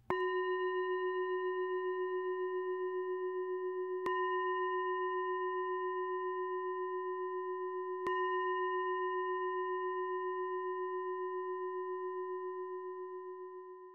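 A singing bowl struck three times, about four seconds apart, rung as a closing bell at the end of a meditation talk. Each strike rings on with a slow wavering hum, and the tone fades away near the end.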